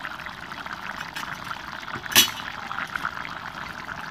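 Chicken and bottle gourd curry bubbling at a boil in a pot, a steady crackle of popping bubbles. A single sharp knock about halfway through.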